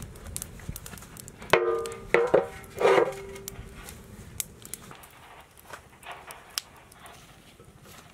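Large metal cooking pot set down on an iron stand over a wood fire, clanging three times about one and a half, two and three seconds in, each clang ringing briefly, the last the longest. Scattered light clicks from the burning wood.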